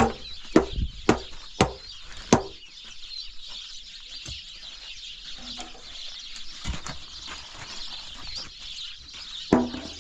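A series of short, sharp animal calls, five in quick succession in the first couple of seconds, then a few fainter, scattered calls.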